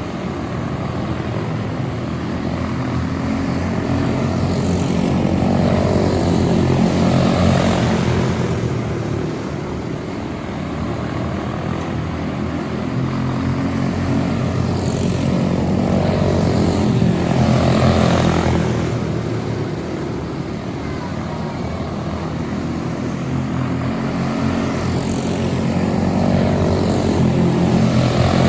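Several quarter midget race cars with single-cylinder Briggs & Stratton Animal engines racing round a small oval. Their engine drone swells and fades as the pack passes, about every ten seconds.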